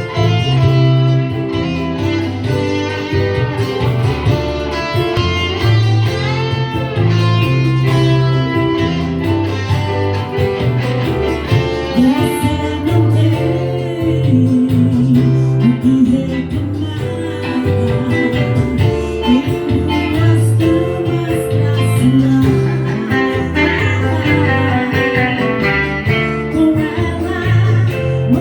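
Band music, an instrumental introduction: a steady repeating bass line under a melodic guitar lead with bent notes.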